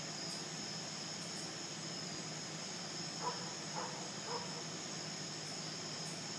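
A steady high-pitched chorus of night insects. Near the middle come three short pitched sounds about half a second apart.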